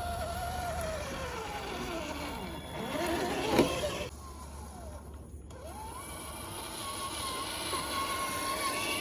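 Motor and gear whine of a Traxxas TRX-4 RC rock crawler, rising and falling in pitch with the throttle, with a sharp knock about three and a half seconds in. The whine cuts off about four seconds in, then starts again and climbs to a steadier, higher pitch.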